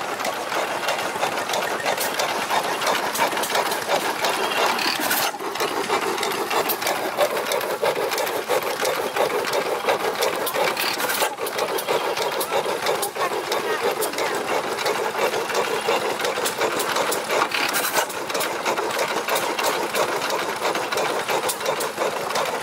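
Vintage Waterloo Boy stationary engine running, with a steady rapid mechanical clatter.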